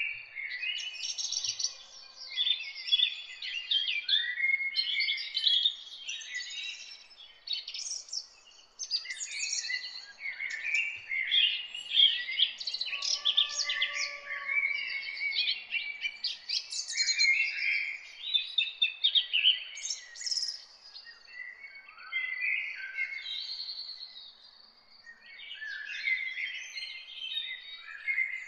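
Small birds chirping and chattering, many short calls overlapping, with only brief lulls.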